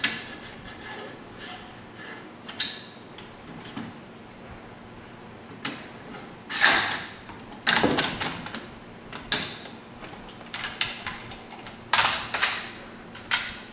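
Metal clicks and clacks of a WE gas blowback airsoft rifle being handled as an open bolt is fitted into the M16A1: about ten separate knocks, the loudest a little past halfway.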